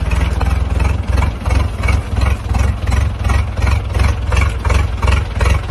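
Engine of an old vehicle running with a heavy low rumble that pulses regularly, about three times a second.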